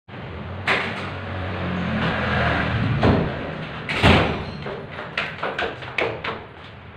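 A metal apartment door being opened and then shut with a bang about four seconds in, followed by a quick run of footsteps on the stairs.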